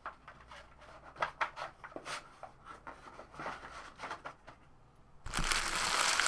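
Trading cards being handled and flipped through, a run of light separate taps and flicks. Then, about five seconds in, a foil card-pack wrapper crinkles loudly and keeps crinkling.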